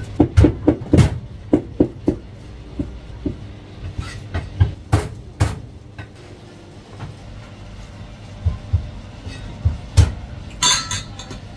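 Cleaver knocking on a cutting board in a quick run of about half a dozen chops, then scattered single knocks and clatters. A short bright metallic clink near the end.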